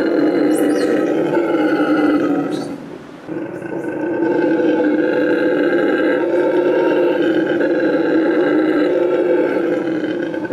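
Bolivian red howler monkey roaring: a long, deep, sustained roar that breaks off for a breath about three seconds in, then starts again and carries on.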